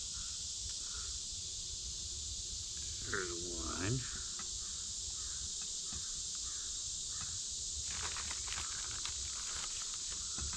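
Evening woods ambience dominated by a steady, high insect drone, with faint repeated chirps under it and one short voice-like call about three seconds in.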